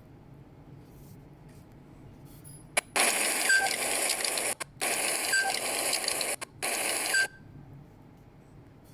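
Wind noise on a microphone with noise reduction on: a loud hiss that switches in about three seconds in, drops out briefly twice, and cuts off abruptly about seven seconds in. A faint low hum lies under it.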